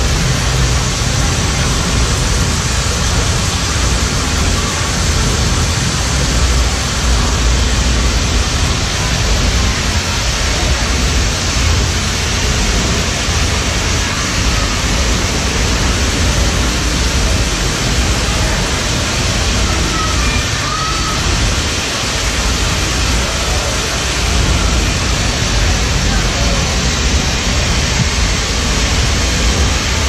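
Loud, steady rush of water from an indoor rainforest exhibit's waterfall running hard during its simulated rainstorm, with a deep rumble underneath.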